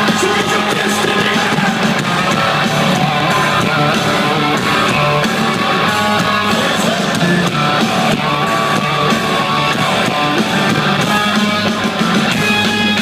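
Live hard rock band playing loud, with electric guitars, bass and drums, heard from the crowd.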